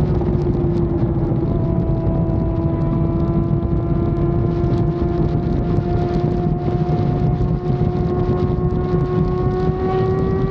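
Yamaha FZ6 Fazer 600's inline-four engine running at a steady high cruising speed on the move. Its note sags slightly and then climbs again near the end, over a continuous rush of wind and road noise.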